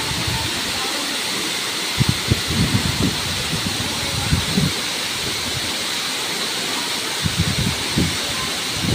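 Steady rushing of a tall waterfall plunging into its pool. A few short bouts of low rumble break in, about two, four and seven seconds in.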